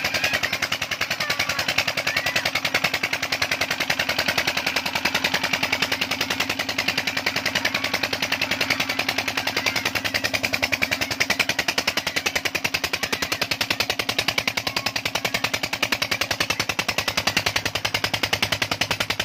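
Single-cylinder stationary diesel engine running steadily, a rapid, even knocking of its firing strokes over a steady hum, driving a belt-driven tube-well water pump.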